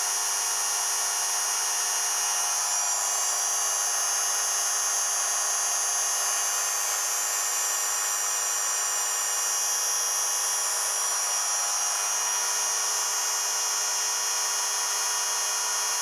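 Bench-top regenerative acceleration generator, a ReGenX replica, running with its motor-driven rotor spinning at steady speed and both regen output coils loaded: a continuous, even, high-pitched whine.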